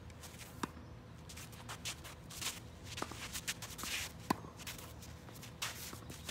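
Tennis rally: a few separate sharp pops of rackets striking the ball and the ball bouncing on the court, the loudest about four seconds in, with players' shoes scuffing and shuffling between shots.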